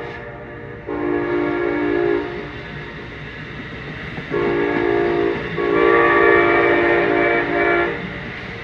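Locomotive air horn on a departing Amtrak double-header sounding three blasts of a multi-note chord, the last the longest, over the steady rumble of the train.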